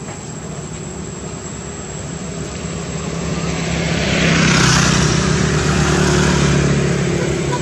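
Engine noise of a passing motor vehicle, growing louder to a peak about halfway through and then easing off only slightly.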